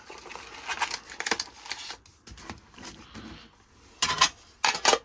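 Trading card packs and their packaging being handled: crinkly rustling with sharp clicks and crackles, in short bursts about a second in and again near the end.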